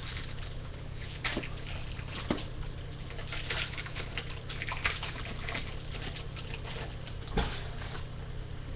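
Foil wrapper of a Bowman baseball card pack crinkling and tearing as it is opened, then the cards being handled, with a few sharp snaps along the way.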